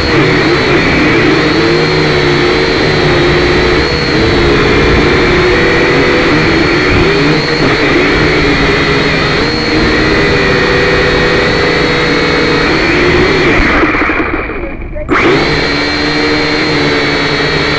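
Syma X5C quadcopter's small coreless motors and propellers whining close to its onboard camera, the pitch wavering up and down as the throttle changes. About fourteen seconds in the sound fades and cuts out for about a second, then comes straight back.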